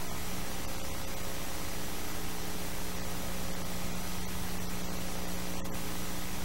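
Steady hiss with a low electrical hum and no other sound: the background noise of a transfer of silent home-movie film.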